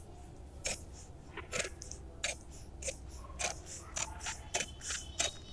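Large tailor's scissors cutting through brown pattern paper: about ten crisp snips, coming faster after about three seconds.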